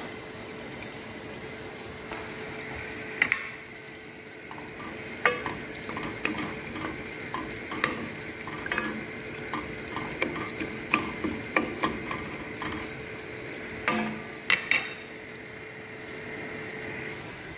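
Rice boiling in a stainless-steel pot with a steady bubbling hiss, stirred with a wooden spoon that knocks irregularly against the pot's side and rim.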